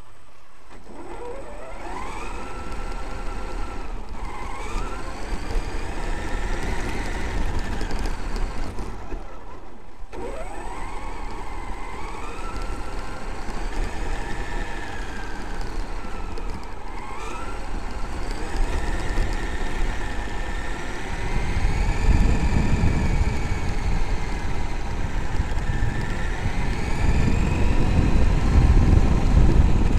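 Electric brushless motor and drivetrain of a Traxxas X-Maxx RC monster truck whining from on board, the pitch rising and falling several times as the throttle is worked. Underneath is a low rumble that grows louder in the second half.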